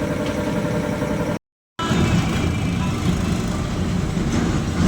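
New Holland 3630 tractor's diesel engine running steadily at idle, a low rumble. The sound drops out for a split second about a second and a half in.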